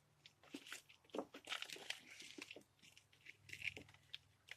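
Faint, irregular crackling and creaking of pallet wood as a slat is pried up off the pallet by a board levered between the slats.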